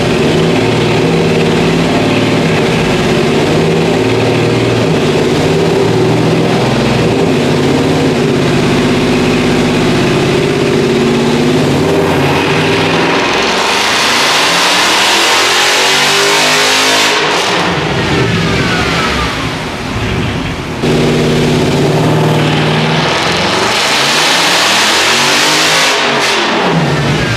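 A 2021 Dodge Charger Scat Pack's 6.4-litre HEMI V8 running loudly under hard throttle, held steady at first and then swinging up and down in pitch. It drops off briefly about two-thirds of the way through and comes back.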